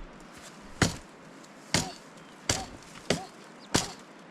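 Chopping: five sharp strikes, roughly one every two thirds of a second, each hit sudden and loud.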